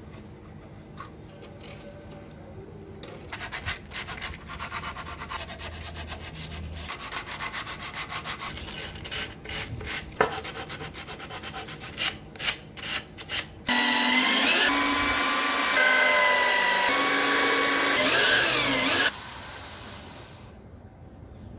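Wood being worked by hand with quick, repeated rubbing strokes, as in sanding or sawing. About two-thirds of the way in, a much louder steady whine with a wavering pitch starts, runs for about five seconds and cuts off suddenly.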